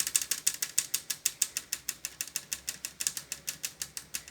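Consul inverter 7,000 BTU split air conditioner making a fast, rapid clicking, about eight to ten clicks a second, that swells and fades slightly and stops just before the end. It is the noise the owner complains kept him awake at night.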